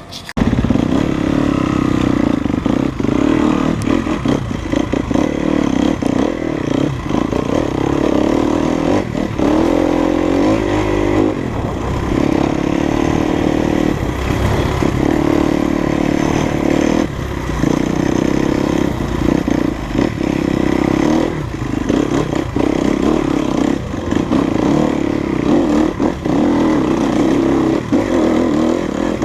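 Enduro dirt bike engine running hard on a trail ride, the throttle repeatedly opened and briefly closed, so the engine note dips every few seconds.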